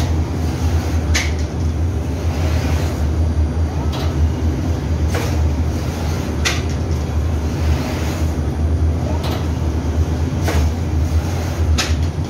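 Automatic flatbread production machinery running: a steady low machine hum with a sharp mechanical clack repeating about every second and a quarter.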